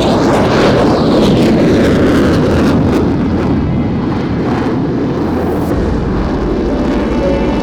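Military aircraft passing low overhead, a loud steady noise whose pitch sweeps down around the start as it goes by.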